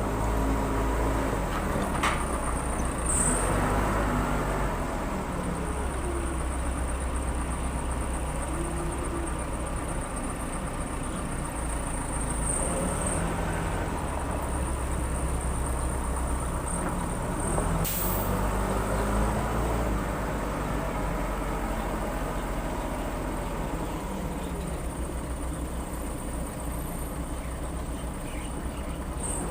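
Case 580 Super L backhoe loader's diesel engine running steadily while the machine works, with an occasional sharp knock, the clearest about 18 seconds in.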